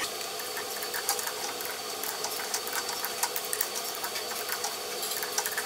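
Metal lathe running while a threading die held in a die holder against the tailstock cuts a thread on a steel rod: a steady machine hum with a thin high whine and a continuous crackle of small ticks from the cutting.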